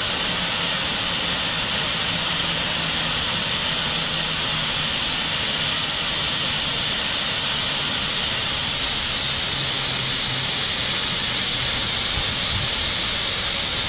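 LMS Stanier Black 5 steam locomotive blowing off steam at its safety valves: a loud, steady hiss of escaping steam.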